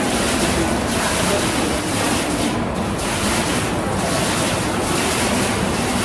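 Digital water-curtain fountain: droplets falling from the nozzle bar overhead splash into the basin below, making a steady rushing, splashing noise.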